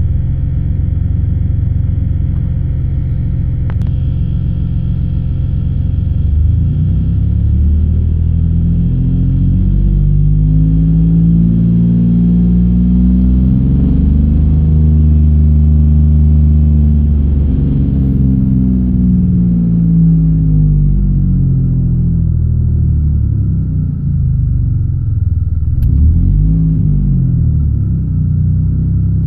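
1999 Pontiac Bonneville's 3800 V6 engine running, revved slowly up from about six seconds in, held, then let back down; a shorter rev rises and falls near the end. The engine misfires, which the owner blames on causes not yet found after a plugged catalytic converter.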